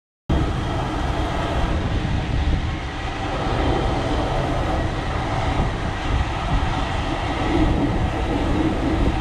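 Case 150 hp steam road traction engine running steadily, with a rapid, even beat.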